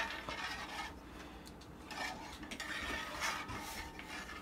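A utensil stirring and scraping around a nonstick skillet of heating cream-and-butter sauce, in uneven strokes with a click at the start.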